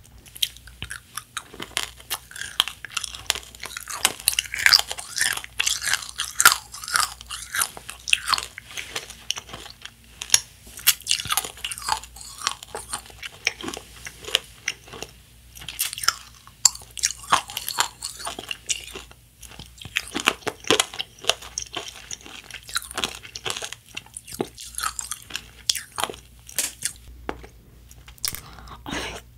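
Chewing and crunching Nerds Rope candy: the small hard Nerds pieces coating a gummy jelly rope crack between the teeth in a dense, irregular run of crunches, with a short lull near the end.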